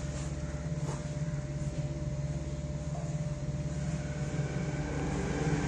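Steady low hum of machinery running, an even mechanical drone.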